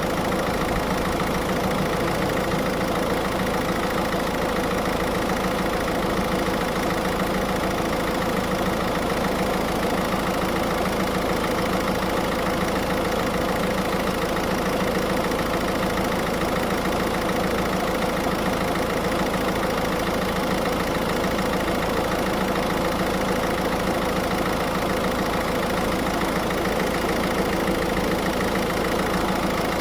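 Car engine idling steadily with the air-conditioning compressor engaged during a refrigerant recharge, a steady tone running through it.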